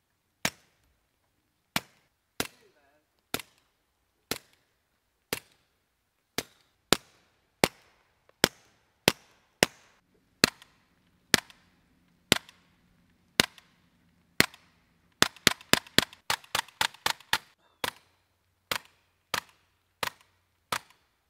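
Suppressed .22 LR shots through a TBA Peacemaker rimfire suppressor, from a pistol and a rifle: sharp single cracks mostly about a second apart, then a fast string of about ten shots, roughly five a second, about three-quarters of the way through.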